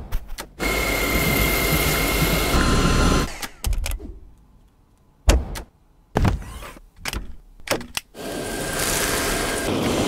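Dyson V8 Absolute cordless stick vacuum running with a steady high whine, cutting off about three seconds in. A few sharp clicks and knocks follow, one loud knock about five seconds in, and the vacuum runs again with its whine over the last two seconds.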